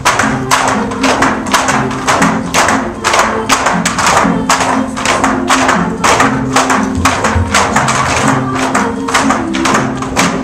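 Bamboo poles clacked together and knocked on the floor in a steady rhythm of about three strikes a second, keeping time for a bamboo pole dance, over music with a simple held-note melody.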